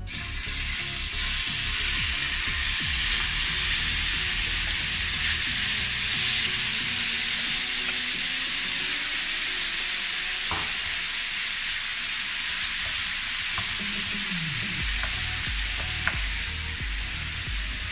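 Marinated boneless chicken pieces dropped into hot oil in a frying pan, sizzling loudly and steadily from the moment they land. A spatula stirs the pieces near the end, adding a few light clicks.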